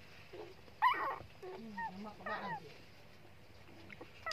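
Young puppies whimpering: a few short, high-pitched whines that bend in pitch, the loudest about a second in, then several softer ones.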